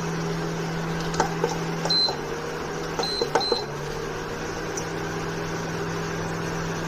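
Electric cooktop humming steadily, with a few light clicks and three short high beeps, one about two seconds in and two about a second later; the hum shifts after the beeps as the heat setting changes.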